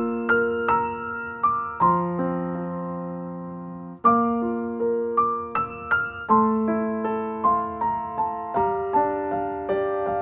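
Background music: a slow, gentle keyboard tune of struck notes and held chords, each note fading after it is played. It breaks off for a moment about four seconds in, then carries on.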